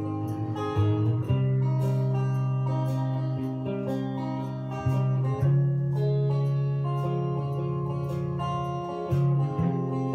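A small live band playing a song: strummed acoustic guitar with electric guitar and drums.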